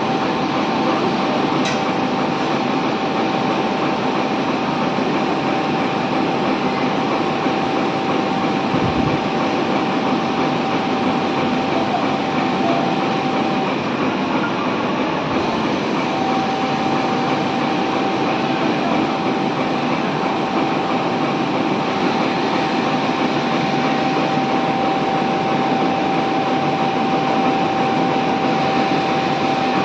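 Industrial sewing machinery running steadily: a dense, even mechanical noise with a constant whine that drops out for about two seconds midway and then returns.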